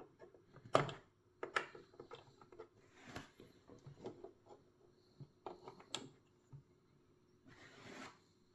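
Handling noise from a puzzle box: scattered small clicks and taps as its parts are turned and tried, with a short sliding rub near the end.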